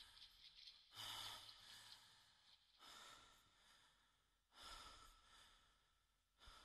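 Near silence, broken by about four faint whooshes of noise, each starting suddenly and fading away over a second or so.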